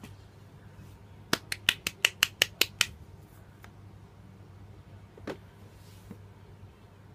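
A quick run of about nine sharp clicks, some six a second, followed a few seconds later by one more.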